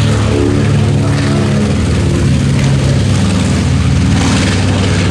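North American B-25 Mitchell bomber's twin Wright R-2600 radial engines at full takeoff power, a loud steady propeller drone as it climbs away.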